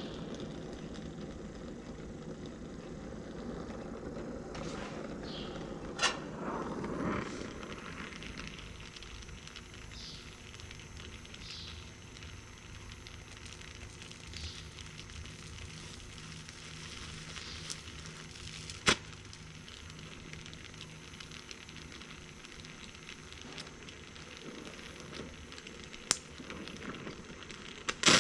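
Oxy-acetylene torch flame hissing steadily as it heats sheet steel for a brass plug weld, a little louder for the first several seconds, with a few short sharp clicks.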